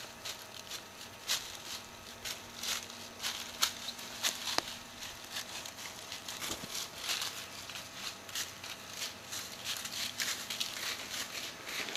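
Whitetail buck walking through dry leaf litter: irregular crunching and rustling of its steps, with a few sharper cracks in the first half.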